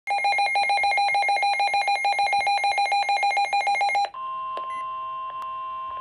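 A weather alert radio's own alarm beeping rapidly at a high pitch for about four seconds, then switching to the steady NOAA Weather Radio warning alert tone played over the broadcast. The alarm signals that a warning message is about to be read.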